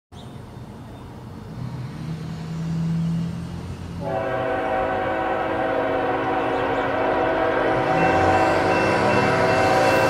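A low rumble builds, then about four seconds in an approaching CN freight locomotive's Nathan K5HL five-chime air horn sounds one long, held chord that grows louder.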